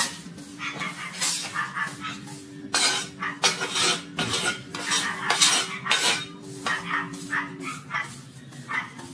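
Steady hum of a small engine running, with a quick series of short, sharp clattering or scraping noises over it.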